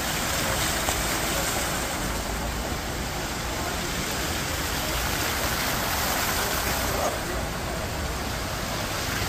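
Many small water jets of a plaza fountain splashing steadily into a shallow pool.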